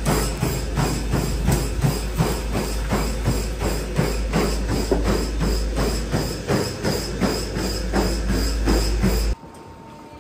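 Running footfalls pounding a treadmill belt, about three strides a second, over a steady low hum. The sound cuts off suddenly about nine seconds in.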